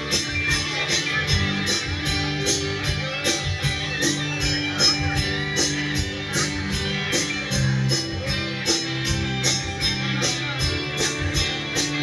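Live band playing, with electric guitars and keyboard over drums. A steady high ticking beat runs about three times a second.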